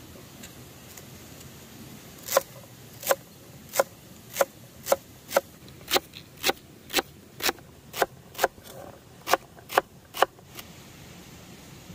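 Kitchen knife chopping celery stalks on a wooden cutting board: about fifteen crisp chops at roughly two a second, starting about two seconds in and stopping shortly before the end.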